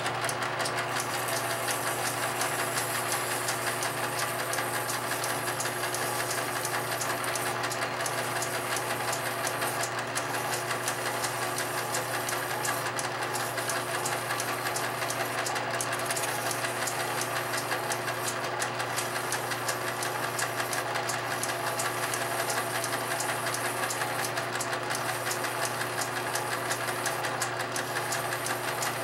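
Small metal lathe running steadily with a steady hum, its chuck spinning a wooden dowel. A block of sandpaper is held against the turning dowel to taper it.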